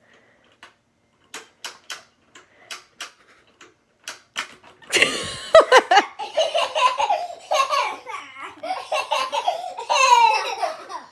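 Pie Face game crank clicking in a run of short irregular clicks as it is turned, then the spring-loaded arm snapping up and slapping whipped cream into a face about five seconds in, followed by children's loud laughter.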